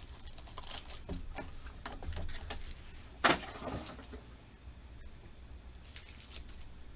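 Pokémon Crimson Invasion foil booster packs being pulled from their cardboard booster box and handled: scattered crinkles and small clicks, with one sharp knock about three seconds in.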